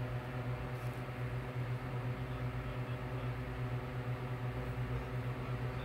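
A steady low hum at one constant pitch with evenly spaced overtones, like a running machine or appliance.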